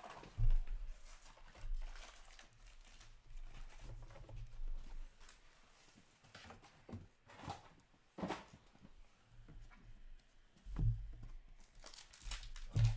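Trading cards and their paper packaging handled on a tabletop: rustling and crinkling as stacks of cards are picked up and sorted, with a few dull thumps against the table about half a second in and near the end.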